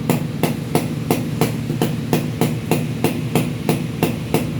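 Yamaha motorcycle engine running at idle, a steady low hum with a sharp, regular knock about three times a second.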